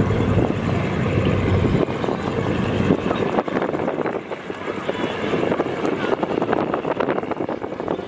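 Low engine rumble, heavier for the first two seconds and lighter after, with wind buffeting the microphone.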